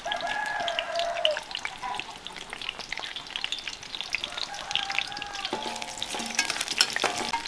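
Sliced garlic and onion frying in lard in a clay cazuela, a steady sizzle with frequent small crackles and pops as they brown.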